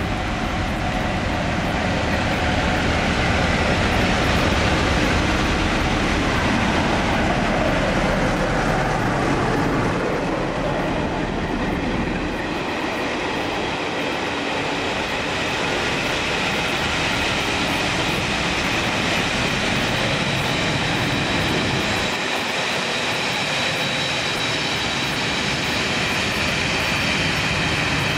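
Class 47 diesel locomotives with Sulzer twelve-cylinder engines approach and pass at speed, their engine note dropping in pitch as they go by about eight seconds in. The deep engine rumble fades about halfway through and gives way to the steady rolling of a rake of coaches going past, with a thin high whine from the wheels.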